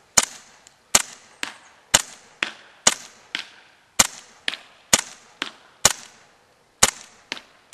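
KWA M1911 gas blowback airsoft pistol being fired in slow single shots, a sharp crack about once a second, each followed about half a second later by a fainter click.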